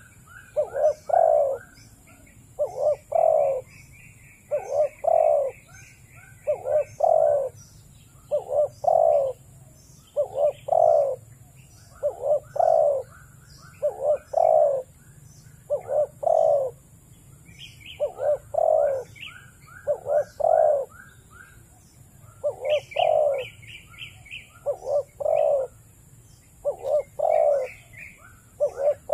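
Spotted dove cooing: short phrases of two or three low coos, repeated about every two seconds. Small birds chirp faintly and in quick runs between the phrases.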